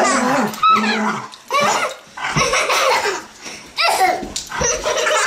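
Young children shrieking and laughing in rough play, with a Doberman's excited vocalising mixed in.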